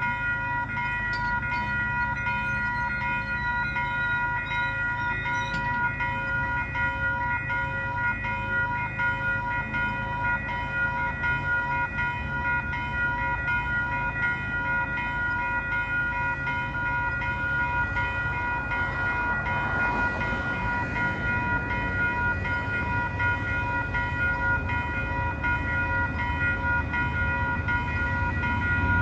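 Level crossing warning bells ringing in a fast, even rhythm, with a steady low rumble underneath that grows louder near the end.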